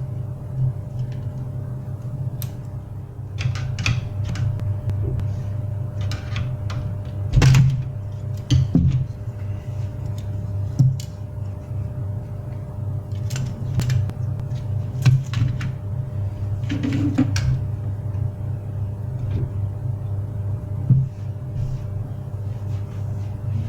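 A steady low mechanical hum with scattered clicks and knocks.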